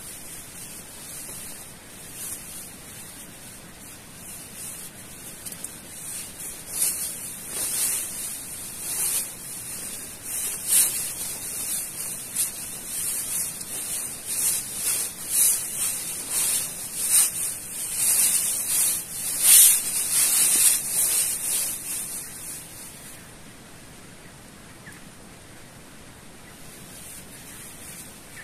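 Nylon hammock fabric rustling and swishing in irregular bursts as a person climbs into the hammock and settles, over a steady hiss. It dies down a little after the middle.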